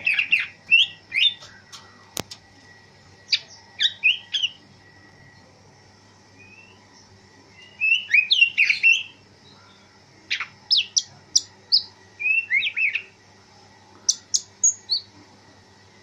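Male cucak ijo (green leafbird) singing in short, loud bursts of quick whistled and chattering notes, about six phrases separated by brief pauses.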